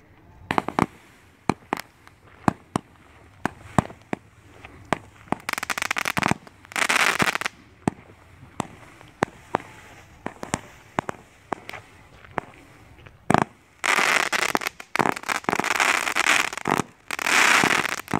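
96-shot consumer firework cake firing: sharp single shots in a steady series about two a second, broken by a couple of dense stretches, then near the end a fast, continuous barrage of shots.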